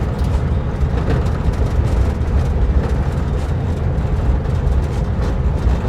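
Vintage split-window VW bus driving on a rough dirt trail: its air-cooled flat-four engine running steadily under load, with occasional knocks and rattles from the body.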